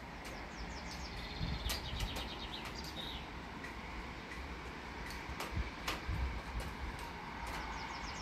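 Songbirds chirping and trilling in short bursts over a steady hiss of rain, with a few low rumbles of wind on the microphone.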